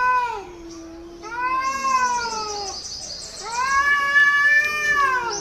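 Angry cat yowling at another cat in an aggressive standoff: long, drawn-out wavering howls. A lower, steady moan comes between the first two.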